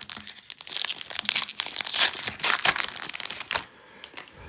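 A plastic trading-card pack wrapper crinkling as it is torn open and handled, a dense crackle that stops about three and a half seconds in.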